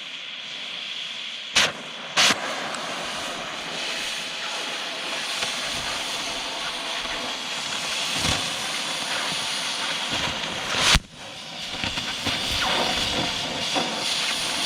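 Oxy-acetylene cutting torch hissing steadily as it cuts through steel plate, with a few sharp pops; the loudest comes about eleven seconds in. The popping comes from dirt on the steel.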